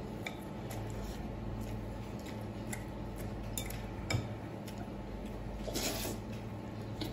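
Chopsticks clicking against a glass bowl as sesame-paste noodles are stirred and picked up, with the loudest clink about four seconds in. A short slurp of noodles follows near the end, over a steady low background hum.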